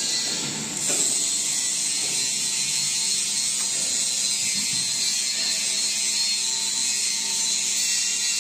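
Stainless steel laboratory tannery drum turning on its motor drive, a steady mechanical running noise that grows louder and brighter about a second in.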